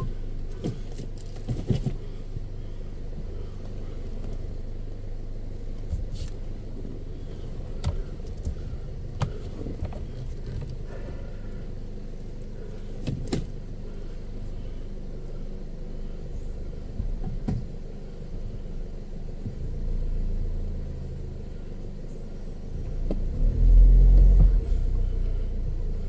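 Car engine running with a steady low rumble, swelling briefly about 20 s in and louder around 24 s, with scattered clicks and knocks.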